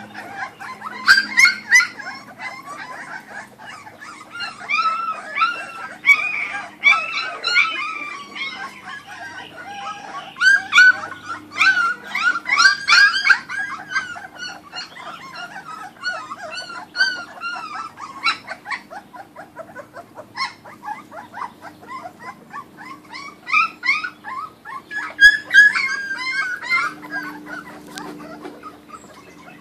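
A litter of Kuvasz puppies squealing and whining in a busy chorus of short, high calls, several at once, while jostling at a shared food bowl; the calls thin out for a while a little past the middle, then pick up again near the end.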